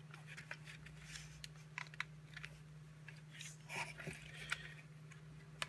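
Faint, scattered small plastic clicks and crackles as the circuit board of a VW Mk3 instrument cluster is worked loose from its housing's retaining tabs with wire cutters. A low steady hum runs underneath.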